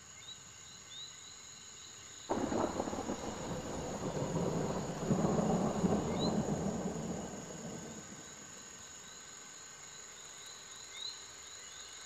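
Steady high chirring of rainforest insects, with a few short chirps. About two seconds in, a loud roll of thunder breaks in suddenly, swells, and fades away over about five seconds.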